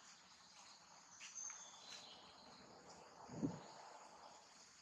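Faint, steady high-pitched insect chorus, with a brief soft thump about three and a half seconds in.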